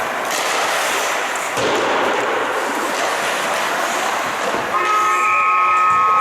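An ice rink's period horn starts about three-quarters of the way in and sounds as one steady chord of several tones, over a steady rush of rink noise. Coming at the close of the video of the first period, the horn marks the end of the period.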